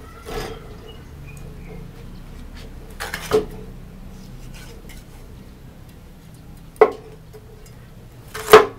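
Meat cleaver chopping into a boiled goat head on a wooden chopping board: a handful of sharp chops a few seconds apart, one of them a quick double, the loudest near the end.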